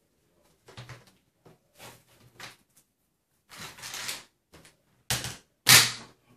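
Hard plastic clicking and scraping as the lid of a polyethylene berley pot is taken off and put back on: a string of short knocks, a longer scrape about three and a half seconds in, and the loudest knocks near the end as the lid goes back on.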